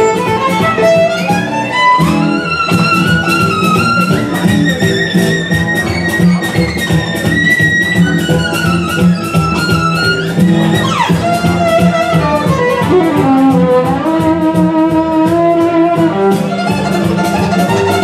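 Solo violin playing a fast-tempo gypsy-style tune live, the melody line held over a quick, steady rhythm. About eleven seconds in the violin slides sharply down in pitch, and it slides down again a couple of seconds later.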